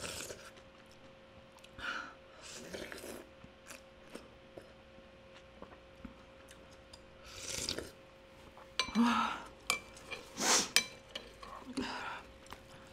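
Slurping sips of hot noodle-soup broth from a metal spoon, several short slurps spread out, with a few sharp clinks of the spoon against a ceramic bowl about nine seconds in.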